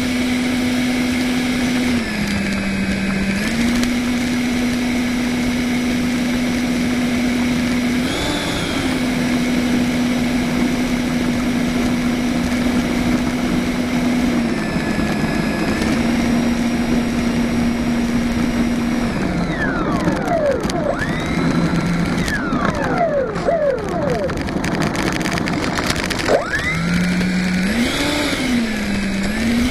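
The 70mm electric ducted fan of an RC jet running at low throttle while it taxis, giving a steady whine over a constant rush of air. The pitch dips and comes back several times as the throttle is eased, and wavers quickly for a few seconds past the middle.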